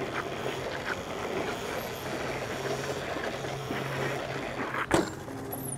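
Wind rushing over the microphone of a moving camera, with a steady low hum underneath and one sharp click near the end.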